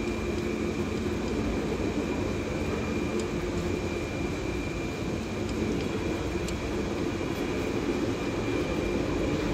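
Steady machine hum with a faint high-pitched whine, even in level throughout.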